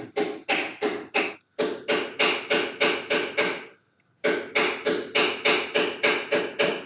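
A silversmith's hammer tapping quickly and evenly on a silver bangle held on an anticlastic stake, about four blows a second, in three runs with two short pauses. The taps push the bangle down into contact with the stake to raise its two opposing curves.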